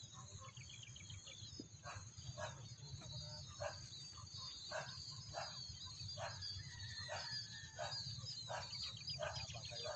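Outdoor rural ambience: short animal calls repeating every half second to a second, over high chirping and a steady high insect hiss.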